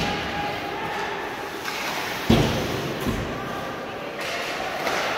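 A basketball thudding a few times, the loudest about two seconds in, amid voices echoing in a gymnasium.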